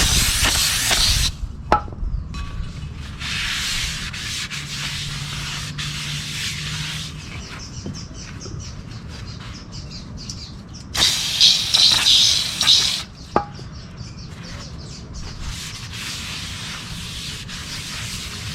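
Aerosol brake cleaner sprayed onto a brake rotor in three long hissing bursts: one at the start, one from about three to seven seconds in, and one from about eleven to thirteen seconds in. Quieter rubbing and a couple of sharp clicks come in between.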